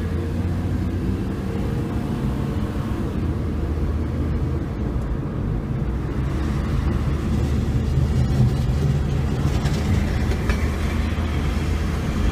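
Steady low rumble of a vehicle driving along a city street: road and engine noise heard from the moving vehicle.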